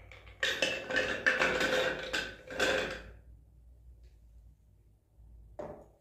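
Washed almonds poured from a glass beaker into a glass jug, clattering against the glass in a dense rattle for about two and a half seconds.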